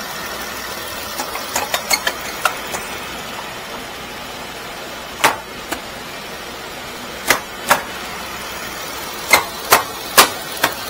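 Jeep Wrangler's 3.6-litre V6 idling steadily while warming up after a radiator replacement, with a series of sharp clicks and knocks over it: light ones in the first few seconds, then louder ones in close pairs, the loudest near the end.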